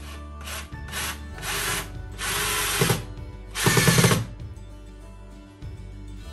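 Cordless drill driving a screw through a metal shelf bracket into a wall plug. It runs in about six short bursts that grow longer and louder, the last two the longest, and stops a little after four seconds in.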